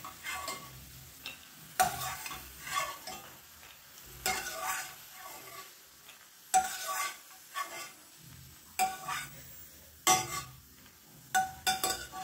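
Steel ladle scooping fried peanuts out of hot oil in a kadai and tipping them into a steel bowl: short scrapes and ringing metal clinks about once a second, over a faint sizzle of the oil.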